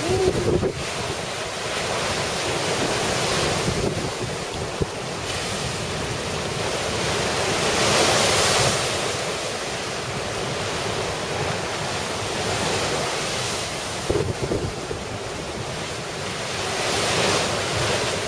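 Heavy storm surf crashing against a stone seawall and washing over it, with strong wind buffeting the microphone. The surf swells louder about eight seconds in and again near the end.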